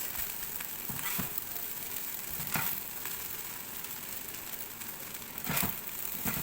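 Fried rice with egg sizzling in a hot pan over high heat, with a few scrapes and knocks of the spatula against the pan as the rice is stirred.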